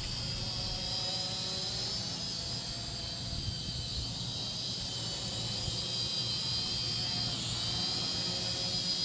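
SNAPTAIN SP600 quadcopter drone's propellers whining steadily in flight, the pitch dipping briefly about seven and a half seconds in, over a low rumble.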